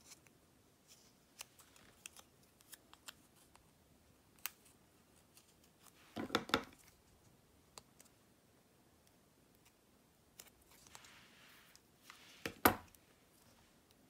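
Handling of double-sided adhesive tape: scattered light clicks and taps, two short clusters of sharp clicks about six seconds in and again near the end, and a soft rustle just before the second cluster as the tape's backing is worked loose.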